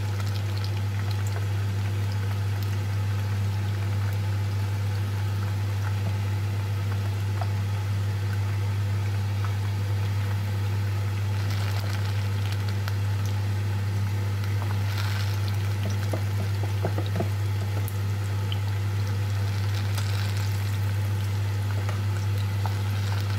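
Acarajé fritters of black-eyed-pea batter sizzling and bubbling as they deep-fry in hot dendê oil, flaring louder a few times as more fritters go into the oil. A steady low hum runs underneath.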